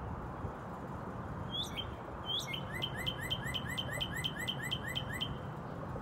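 Male northern cardinal singing: two slurred whistles, then a fast run of about a dozen repeated chirps, some five a second, that stops shortly before the end.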